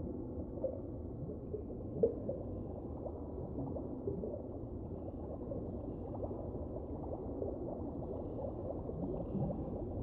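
Muffled, underwater-sounding bubbling and gurgling water: a dense, steady stream of small bubble pops.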